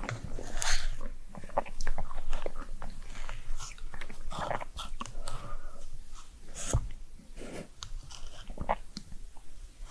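Close-miked eating: repeated biting and chewing with irregular crunching and wet mouth clicks.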